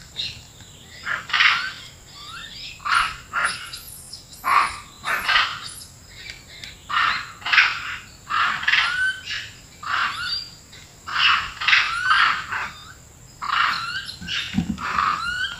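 Long-tailed macaques calling: a steady run of shrill chattering calls, one or two a second, many ending in a short upward squeal. The troop has been stirred up by a recording of macaque calls played back as a lure.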